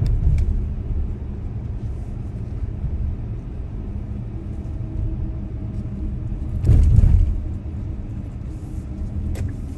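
Car driving along a city street: steady low road and engine rumble, with a louder surge about seven seconds in.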